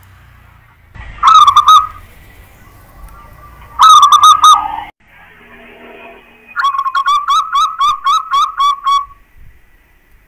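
Zebra dove (perkutut) cooing loudly: two short clipped phrases, then a longer run of about ten quick notes, roughly four a second.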